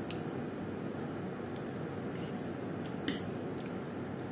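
A man chewing a mouthful of stir-fried instant noodles close to the microphone, over a steady hiss. A few small clicks come through, with one sharper click about three seconds in.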